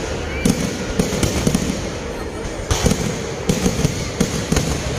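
Kerala-style vedikettu fireworks: a dense, continuous barrage of sharp bangs and crackle, several reports a second overlapping one another.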